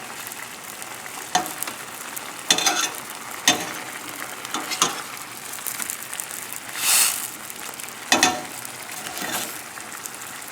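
White wine and lemon juice sauce sizzling steadily as it reduces around the chicken and mushrooms, with several sharp clicks and scrapes of a utensil being stirred against the pan, and a louder hiss about seven seconds in.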